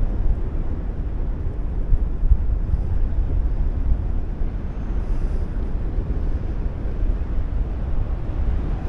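Wind rushing and buffeting over the microphone of a paraglider pilot in flight, a steady low rumble that rises and falls in gusts.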